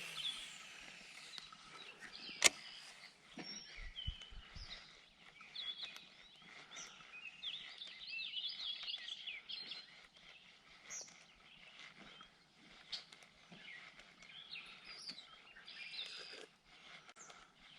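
Birds chirping and singing in a scattered, overlapping chorus over a faint outdoor background, with one sharp click about two and a half seconds in.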